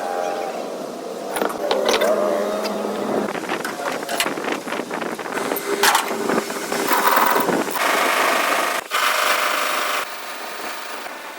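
Metal workshop noises: scattered knocks and clanks, then a power tool running for about three seconds before it cuts off.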